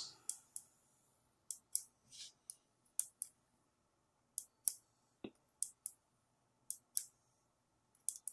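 MicroSD card pushed in and out of a spring-loaded push-push card socket: small sharp clicks, mostly in close pairs, repeating about every second as the card latches and springs back out. The freshly soldered replacement socket is latching properly.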